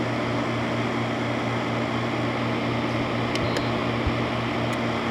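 Haier HWR06XC3-T 6,000 BTU window air conditioner running on medium fan with the compressor cooling: a steady rush of air over a low electrical hum. A few faint clicks come between three and five seconds in.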